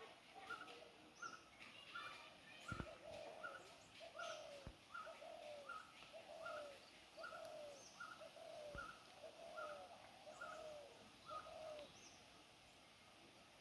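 Faint animal calls repeating in a steady rhythm: a short higher note two to three times a second, joined for most of the stretch by a lower, slurred note that drops out near the end. A few soft knocks come in between.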